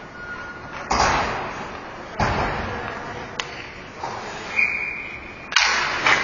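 Ice hockey play echoing in a rink: several sharp thuds with ringing tails, like a puck or players hitting the boards, a few sharp clicks, and a short high whistle about four and a half seconds in.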